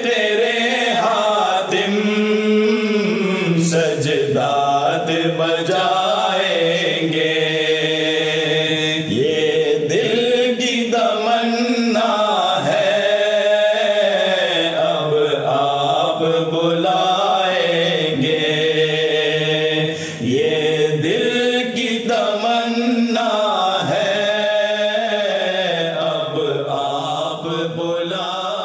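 Male reciters chanting the refrain of an Urdu devotional ilteja, unaccompanied and in a slow melodic line, growing somewhat quieter near the end.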